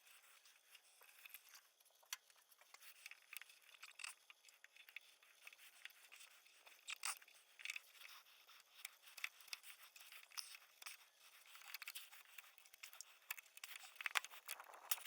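Faint, irregular scraping and sharp little clicks of a hand chisel paring wood from the door edge, cutting out the mortise for the latch.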